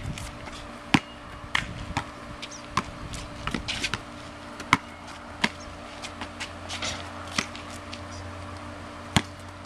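Basketball bouncing on a concrete court: a dozen or so sharp, irregular thuds as it is dribbled and played, the loudest about a second in and again near the end, over a steady faint hum.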